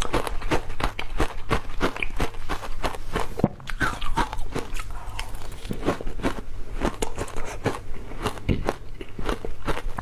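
Close-miked crunching and chewing of ice: a rapid run of sharp cracks as the ice is bitten and ground between the teeth, with a short lull about a third of the way through.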